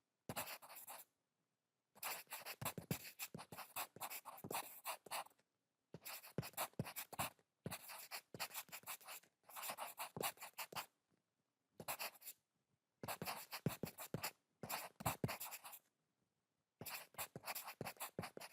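Pencil writing fast on paper: quick scratchy strokes in bursts of one to two seconds, with short pauses between them.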